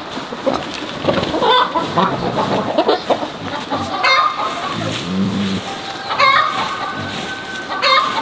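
Chickens clucking and calling, with several loud calls that stand out about four, six and eight seconds in. Beneath them, a straw broom scratches across dry dirt ground in repeated strokes.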